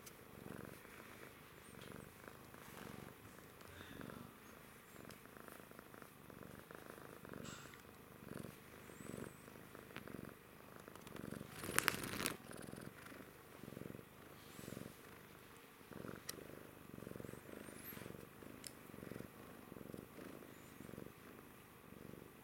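A domestic cat purring steadily while being stroked, the purr swelling and fading with each breath about once a second. About halfway through comes a brief loud burst of handling noise.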